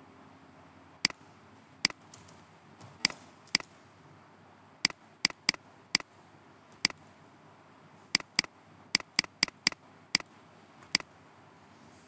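Computer mouse clicking: sharp single clicks at irregular intervals, about seventeen in all, some coming in quick runs of two to four, over a faint steady hiss.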